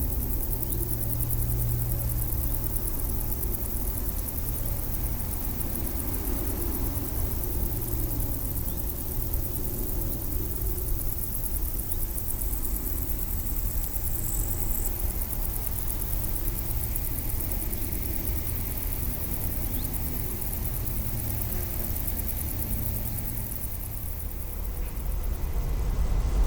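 Outdoor ambience dominated by a steady low rumble with a faint even hum, like distant engine noise; a thin high tone sounds briefly about halfway through.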